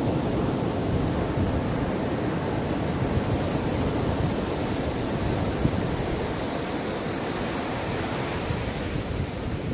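Sea waves washing onto the shore, a steady rush of surf with no single crash standing out.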